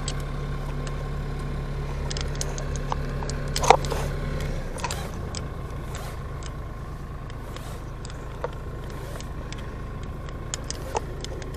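Tractor engine idling steadily, its hum dropping lower and quieter about four and a half seconds in, with scattered light metallic clicks and clinks over it.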